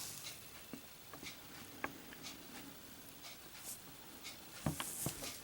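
Faint, scattered light taps and clicks of small objects being handled by hand, a few at a time with pauses between.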